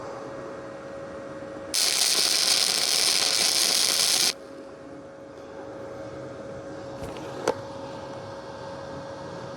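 Wire-feed welder arc crackling during a weld run of about two and a half seconds on heavy metal at a high heat setting, starting and stopping abruptly. A steady faint hum runs underneath, and a single sharp click comes near the end.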